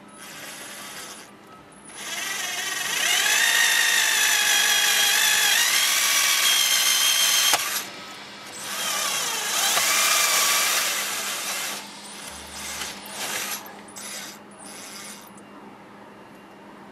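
Cordless drill with a step bit boring through a plastic console trim panel. The motor whines in two long runs of several seconds, its pitch rising and dipping as the bit bites, then gives a few short bursts near the end.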